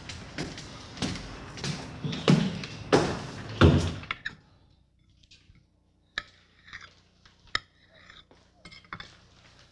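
Kitchen clatter of dishes and utensils being handled. Several loud clattering or scraping strokes come in the first four seconds, then sparse light clicks and clinks after a short lull.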